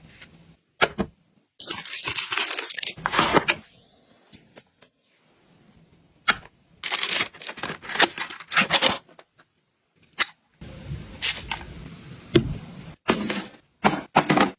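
Packaging being handled and torn open: several bursts of tearing and crackling, some brief and some lasting a second or two, separated by short near-silent pauses, with a few sharp clicks.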